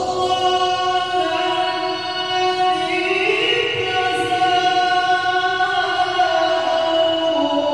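Melodic Qur'an recitation (tilawah) by a single voice, drawn out in long held notes that slide slowly up and down in pitch.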